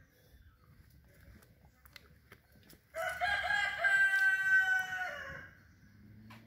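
A rooster crowing once, a single crow about two and a half seconds long that starts with a few quick stuttering notes, holds one pitch and drops away at the end.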